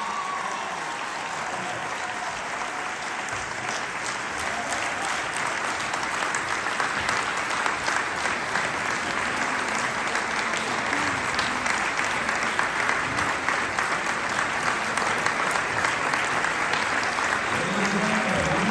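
Audience applauding, the clapping growing steadily louder.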